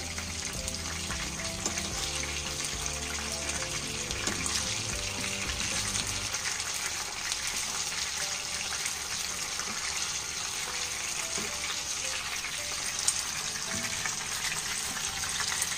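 Whole marinated tilapia sizzling steadily as they shallow-fry in hot oil in a frying pan, the second side cooking after being turned. One sharp click near the end.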